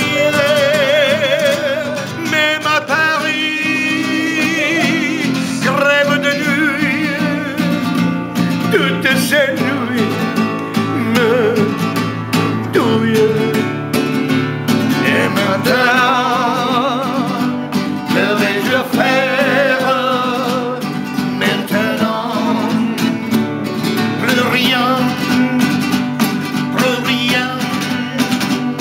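Classical nylon-string guitar strummed as accompaniment while a man sings, holding long notes with a wide vibrato.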